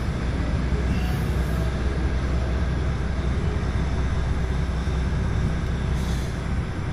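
A lorry's diesel engine running with a steady low rumble as the truck reverses slowly, heard from inside the cab. The rumble eases slightly about six seconds in, with a brief faint hiss.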